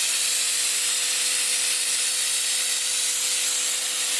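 Compressed-air hopper spray gun spraying a coating onto a concrete wall: a loud, steady hiss with a faint steady tone beneath it.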